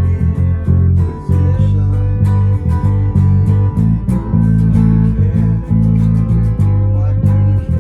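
A band playing a song live, with bass guitar and guitar over a steady drum beat.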